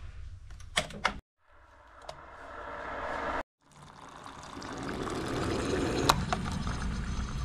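Two clicks as buttons are pressed on an instant hot-water dispenser, then the machine dispensing: hot water streams into a paper cup, the pouring growing louder as the cup fills.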